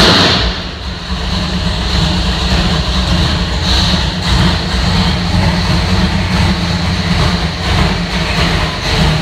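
565-cubic-inch cross-ram fuel-injected big-block V8 idling at about 1,000 rpm on an engine dynamometer: a loud, steady low rumble, briefly louder right at the start.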